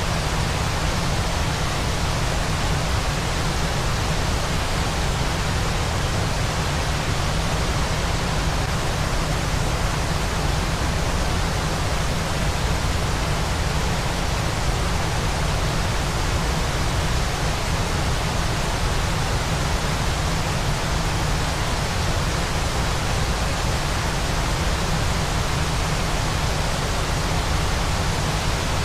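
Waterfall's steady rushing noise: an even hiss over a strong deep rumble, with no change in level.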